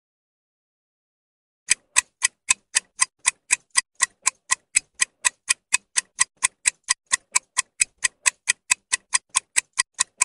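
Clock-style ticking sound effect for a quiz countdown timer, starting nearly two seconds in. The ticks are sharp and evenly spaced, about four a second.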